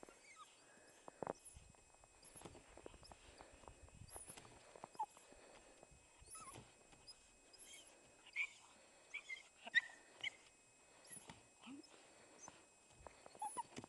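Husky-type puppy whimpering in short, faint high squeaks, most of them about two-thirds of the way through, amid small scattered crackles and clicks of movement in snow and dry leaves.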